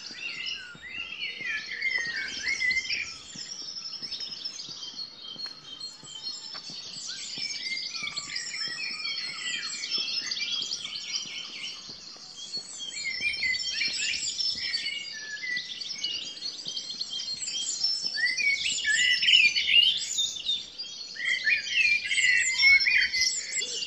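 Dawn chorus: many songbirds singing at once, their songs and chirps overlapping into a dense mass, too many to pick out individual birds.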